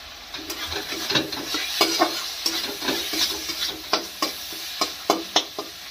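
A spatula scraping and knocking against a metal kadhai in quick, irregular strokes, starting about half a second in, as an onion and ginger-garlic masala is stirred. Under it, the masala sizzles steadily as it fries in oil.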